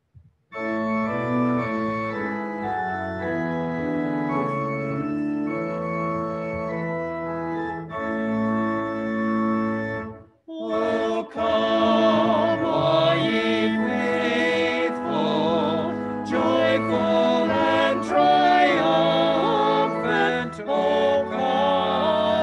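Organ playing a hymn introduction in steady held chords. After a short break, singing voices join the organ about eleven seconds in and carry the hymn on.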